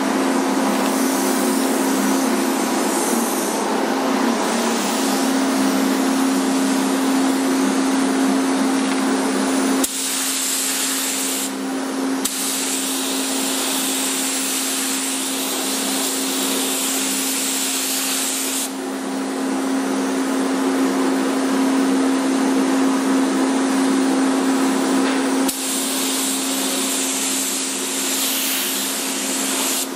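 Compressed-air paint spray gun hissing while spraying a bumper in a paint booth, the hiss coming and going in stretches over a steady machine hum.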